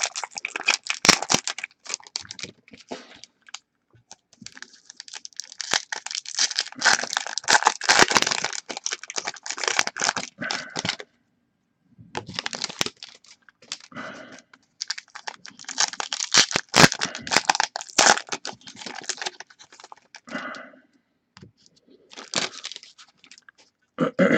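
Foil trading-card pack wrappers being torn open and crinkled by hand, in bursts of crackling with short pauses between them.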